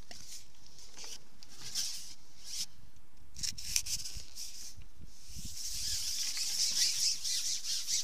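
Close rustling and rubbing of clothing and a hand against the camera's microphone, with a few light knocks near the middle. The rustle grows denser and louder over the last couple of seconds.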